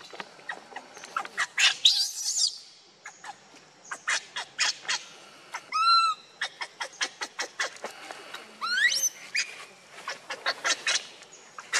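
Young macaques squealing and screaming in many short, high-pitched calls, with a few rising shrieks and one longer arched cry about six seconds in.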